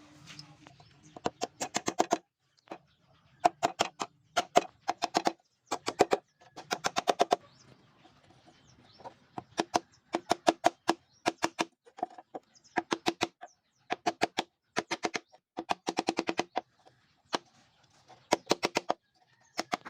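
Hammer strikes on wood in quick bursts of three to six blows, with short pauses between bursts; each blow rings with a short knock.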